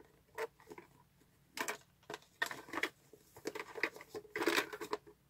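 Light, irregular clicks, taps and rustles of a plastic bento box and its cutlery being handled and fitted together.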